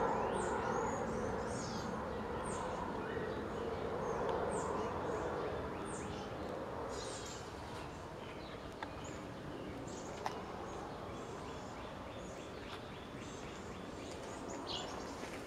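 Outdoor ambience: birds chirping, short falling chirps about once a second through the first half, over a steady low background noise that fades a little. A couple of faint clicks come later.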